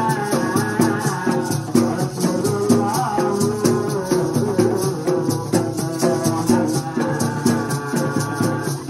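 Brass marakas (maracas) shaken in a fast, even rhythm of about four to five strokes a second, over hand drums, accompanying a sung sholawat melody.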